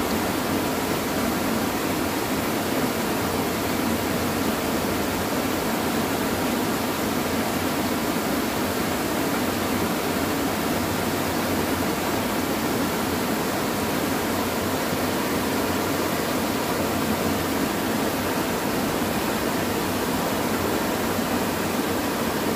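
Water pouring over a small concrete weir into a fast river current: a steady, unbroken rush.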